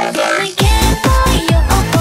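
Electronic dance music backing track: after a short break, a fast, regular kick-drum beat with held synth notes comes back in about half a second in.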